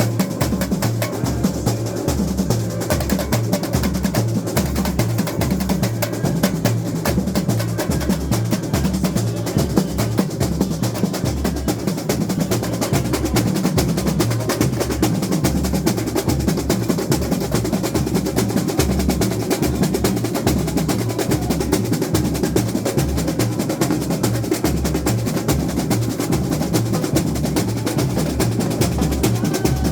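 Samba school bateria drumming: surdo bass drums pounding a steady pulse under dense snare and repinique rolls and rattling small percussion.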